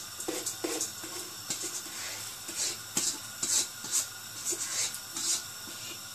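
Soaked basmati rice sliding out of a tipped pot into a pan of boiling water, in short, irregular hissing pours.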